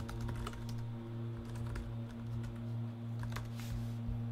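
Typing on a computer keyboard: scattered keystrokes, with a few quick ones near the end, over the steady low buzz of a fan.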